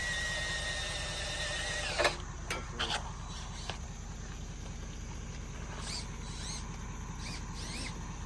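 A steady low engine hum with a thin high whine that fades out about two seconds in. A few sharp knocks follow, then several short rising-and-falling chirps.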